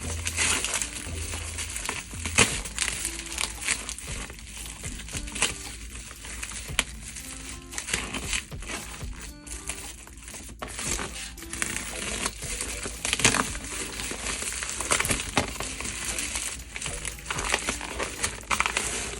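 Packaging crinkling and crackling in irregular bursts as it is handled and opened, over background music.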